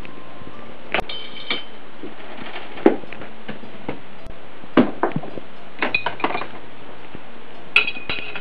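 Parts of a homemade Rube Goldberg machine clattering as it runs: a string of separate knocks and clinks as balls and marbles drop and strike its pieces, with a quick cluster about six seconds in, over a steady hiss.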